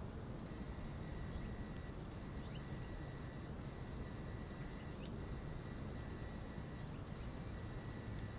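Outdoor ambience with a steady low rumble, over which a bird repeats a short high note about twice a second for around five seconds, stopping a little past halfway.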